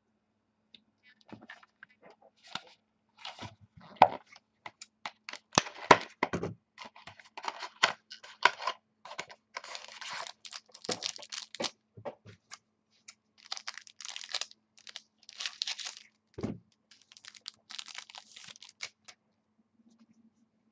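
A trading-card pack wrapper being torn open and crinkled, with the cards handled, giving a long run of irregular crackles, tears and rustles and one dull thump late on.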